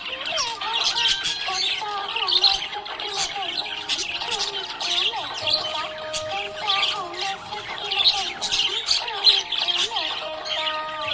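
Budgies chirping and squawking in a dense, unbroken chatter of quick high notes, with music playing underneath.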